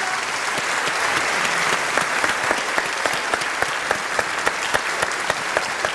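Large theatre audience applauding. From about two seconds in, the clapping falls into a regular beat in unison, about three claps a second.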